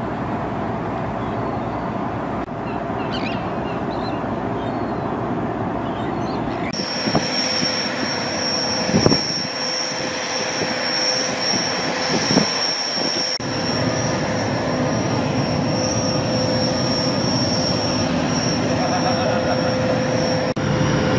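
Steady drone of marine engines and machinery from a salvage tug and floating crane barge. A thin, high steady whine joins it about a third of the way in, with a few brief knocks.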